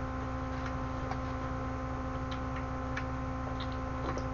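Steady electrical mains hum with faint, irregular clicks and mouth sounds of someone eating rice with a metal spoon from a plastic tray.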